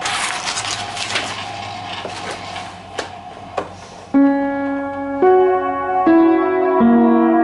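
A crackling hiss with a few sharp clicks for about four seconds, which cuts off suddenly. Then an upright piano strikes four chords about a second apart, each left ringing.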